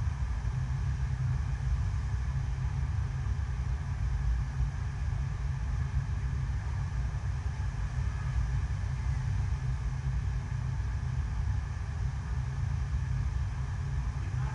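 Steady low rumble of an indoor artificial surfing wave: pumped water rushing in a thin sheet over the wave surface.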